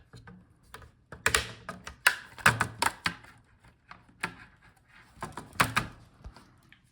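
Irregular clicks, taps and knocks of hands handling laptop parts during disassembly, light plastic and metal contacts with short pauses between them.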